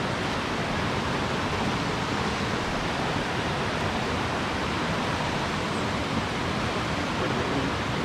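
Steady rushing of flowing water, an even hiss of a river or waterfall at a constant level.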